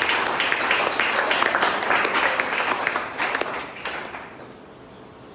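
Applause: many hands clapping together, dying away about four seconds in.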